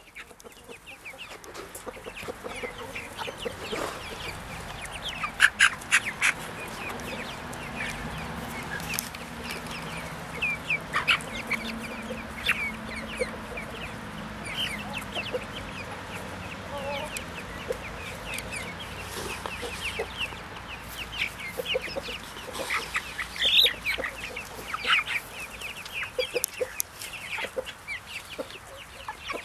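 A flock of young Brahma chickens clucking, with many short calls overlapping continuously. A few louder calls stand out, about five seconds in, around eleven seconds and again near twenty-three seconds.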